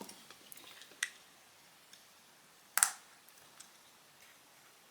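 Small phone parts being handled during reassembly: a few light taps and clicks, with one sharper click a little before the three-second mark.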